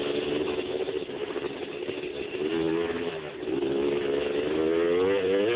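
1986 Honda TRX250R quad's two-stroke single-cylinder engine under way, its pitch rising and falling with the throttle. It dips about three seconds in, then climbs over the last two seconds.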